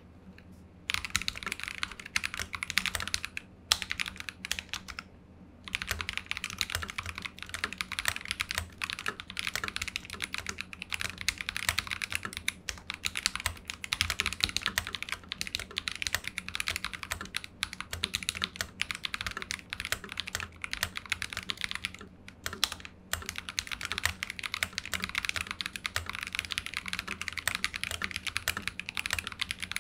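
Fast, continuous typing on a Keydous NJ80 mechanical keyboard with stock Akko Radiant Red linear switches, aluminium plate and plate foam, its back lifted. The typing starts about a second in and pauses briefly twice.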